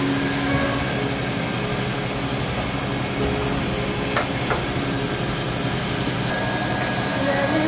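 Cotton candy machine running with a steady whirring hum and hiss. Two short clicks come about four seconds in.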